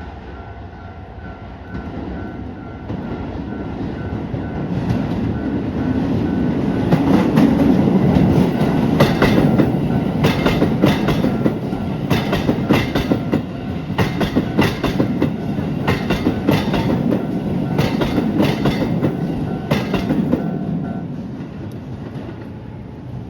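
Keisei 3000 series electric commuter train passing over a level crossing: the rumble builds, the wheels clack in regular groups over the rail joints as the cars go by, then it fades away. A level crossing bell rings steadily and stops shortly before the end as the train clears.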